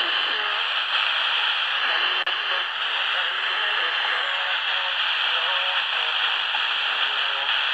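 Portable FM radio receiving a weak long-distance station through heavy static hiss, with a faint programme barely audible underneath. This is typical of a fading Sporadic-E signal. The sound dips briefly about two seconds in.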